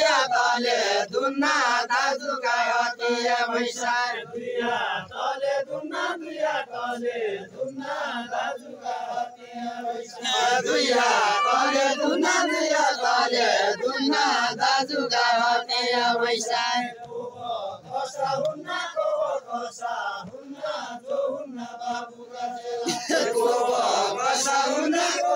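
Group of men singing a Deuda folk song together in a chant-like style, phrase after phrase with short breaks between.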